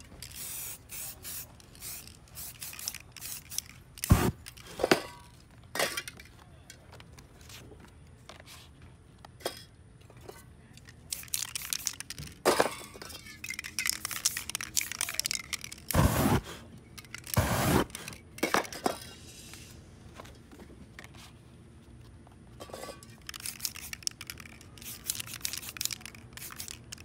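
Aerosol spray-paint cans hissing in short bursts onto paper, several bursts in a row, with a few sharp knocks and clicks among them; the knocks about 4 s in and twice around 16 to 18 s in are the loudest sounds.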